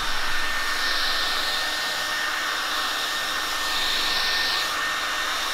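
Handheld hair dryer running steadily, a steady rush of air with a thin steady whine, drying thick, damp hair. Its hiss swells a little twice as it is moved about.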